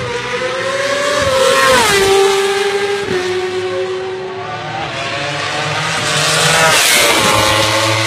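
Two Ducati MotoGP racing motorcycles passing at speed down the straight, about five seconds apart. Each has a high engine note that drops sharply in pitch as it goes by.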